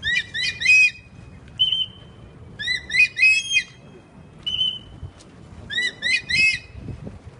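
White-bellied sea eagle calling: three bursts of three quick notes, a few seconds apart, with a single short higher note between the bursts.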